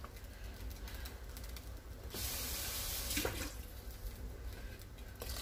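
Kitchen tap running briefly, for about a second starting roughly two seconds in, as the emptied beef-broth container is rinsed out with water. A low steady hum sits underneath.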